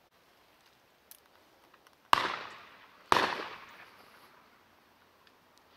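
Two shotgun shots about a second apart, each a sharp crack followed by a long echoing tail that fades over a second or so.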